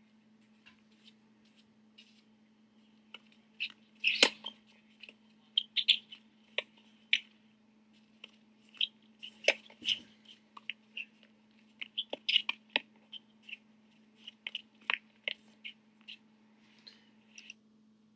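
Faint room tone with a steady low hum and scattered small clicks and ticks, irregular, sometimes a few a second, the loudest about four seconds in.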